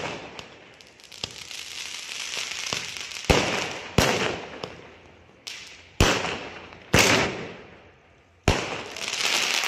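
Aerial fireworks bursting close by: five sharp bangs a second or two apart, each trailing off over a second or so as the shell's sparks spread.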